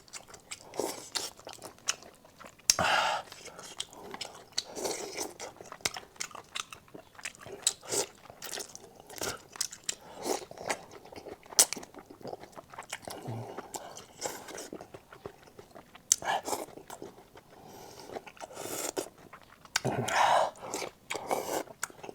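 Close-miked eating: a person biting and chewing, with many sharp little clicks and a few louder crunchy bites.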